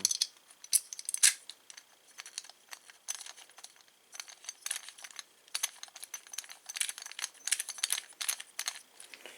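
Small metal door-hardware parts and screws clinking and rattling as they are handled, with many irregular light clicks in quick clusters.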